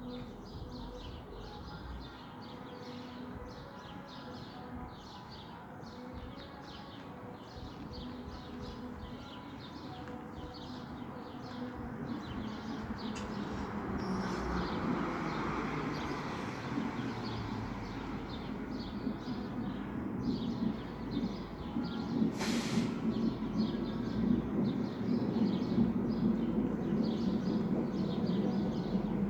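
Distant amplified music from a house party, its beat carrying as a steady ticking about twice a second. A low rumble of passing traffic swells from about halfway and grows louder, with one sharp click about three-quarters of the way in.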